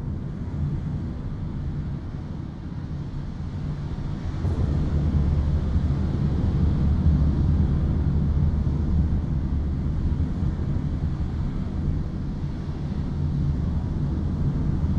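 Loud, low, steady rumble that swells about four seconds in.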